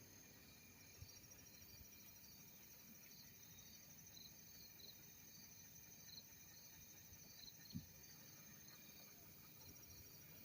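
Faint insects chirping: a fast, steady high trill with slower high chirps about twice a second over it, and a soft thump about three-quarters of the way through.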